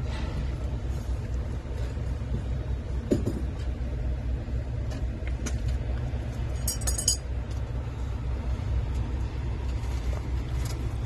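Steady low rumble of an idling diesel truck engine, with a soft knock about three seconds in and a brief metallic clinking about two-thirds of the way through.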